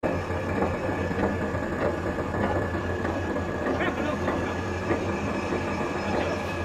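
Lathe-type spiral flight forming machine running: a steady motor hum with a thin high whine over it, and light irregular clicks.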